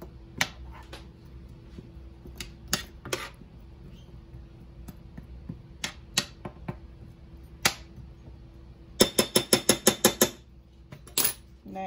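A spoon stirring chicken strips and queso in a frying pan, with scattered clicks and knocks against the pan. About nine seconds in comes a quick run of about ten sharp taps on the pan.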